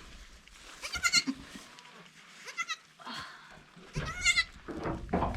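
Newborn goat kids bleating: three short, high-pitched cries about a second and a half apart, with some rustling near the end.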